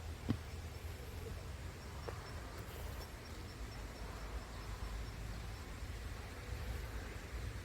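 Wind rumbling on the microphone outdoors, with a single knock just after the start. A faint run of high, evenly spaced chirps comes in the middle.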